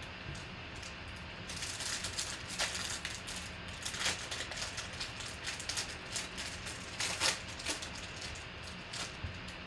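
Trading cards and their clear plastic sleeves and holders being handled, with an irregular run of crinkling and light clicking starting about a second and a half in. A faint steady low hum runs beneath.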